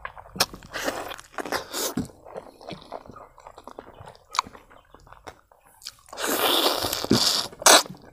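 Close-miked eating of pig trotters with rice: wet smacking, biting and crunching chews. A louder, longer noisy stretch comes about six seconds in, followed by one sharp smack.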